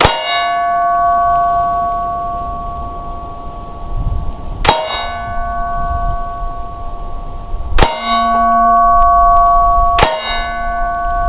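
Four slow, deliberately spaced shots from a CZ P10c pistol, a few seconds apart. After each shot comes a long metallic ring that holds the same pitch every time.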